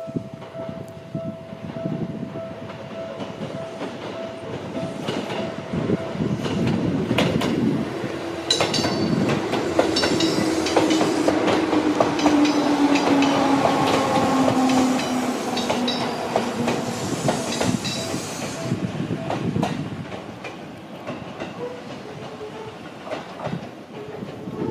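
Seibu 4000 series electric train arriving and slowing. Its motors give a whine that falls slowly in pitch, and the wheels click over the rail joints. It is loudest as the cars pass close by, then fades.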